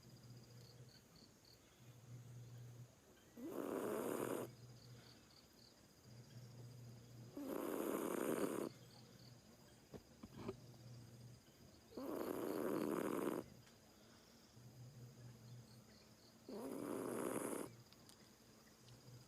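A Siamese cat snoring loudly in its sleep: four loud snores about four seconds apart, with a softer low hum of breath between them.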